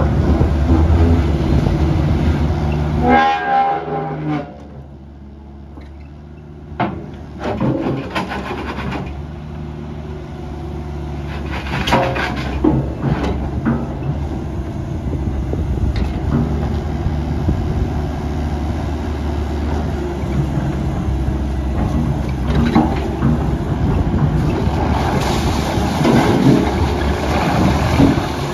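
Hanix midi excavator's diesel engine running. About three seconds in there is a short horn-like tone. The engine sound then drops low for a few seconds, with clanks, before it runs steadily again and gets busier near the end.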